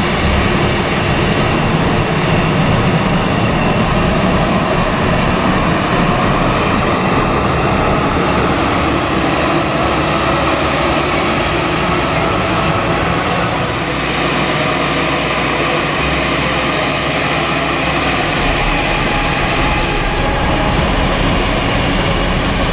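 Jet engines of an Airbus A320-family airliner running at taxi power as it rolls slowly close by: a steady jet engine sound with a faint high whine.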